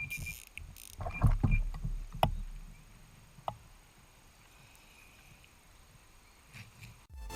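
Water sloshing and splashing, with several knocks and thumps in the first few seconds and a few sharp clicks.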